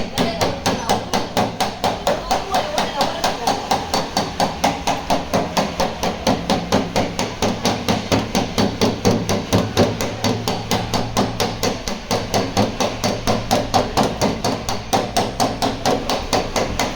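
Hammer striking car-body sheet metal in a rapid, even rhythm of about five blows a second: panel beating to straighten crash-damaged bodywork.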